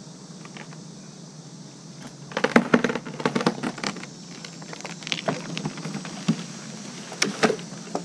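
Stihl chainsaw idling while a cut locust top is pulled over by rope: a quick run of wood cracking and snapping about two and a half seconds in as the hinge breaks, then scattered single snaps of branches.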